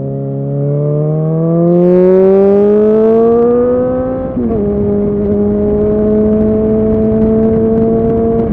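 Suzuki Bandit 650's inline-four engine accelerating, its pitch climbing for about four seconds, then dropping sharply as it shifts up a gear and pulling on at a steady, slowly rising pitch.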